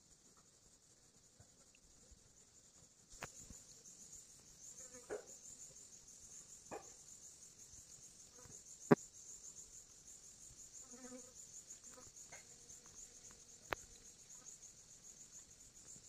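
Insects chirring in a steady, fine, high-pitched pulse, starting suddenly about three seconds in. A few sharp clicks sound through it, the loudest about nine seconds in, along with a couple of brief faint chirps.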